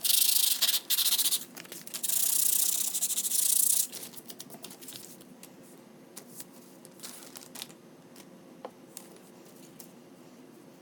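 Sandpaper rubbed over a wooden door hanger, taking off its glittery finish: a few quick strokes, then a longer stretch of rubbing for about two seconds, after which only faint light scrapes and ticks follow.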